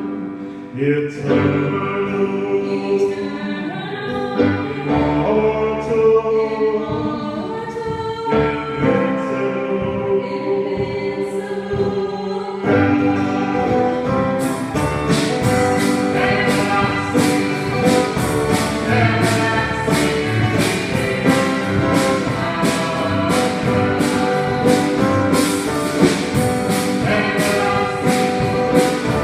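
Live worship band music: voices singing over keyboard and acoustic guitar, with drums and cymbals coming in about halfway through.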